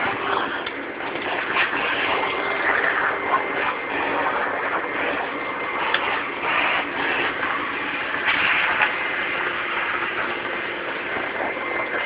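Vacuum cleaner running steadily: a constant rush of air with a faint high whine, briefly louder about eight seconds in.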